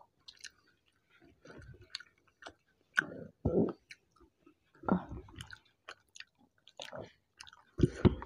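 Close-miked chewing and mouth sounds of people eating rice and steamed hilsa with their fingers: small wet smacks and clicks, with a few louder bursts about three seconds in, about five seconds in and near the end.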